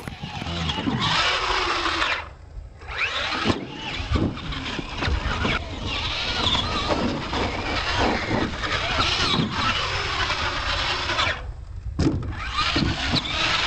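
Radio-controlled monster trucks' motors whining up and down in pitch as they are throttled, with tyres scrabbling on dirt. The sound drops out briefly about two and a half seconds in and again about two seconds before the end.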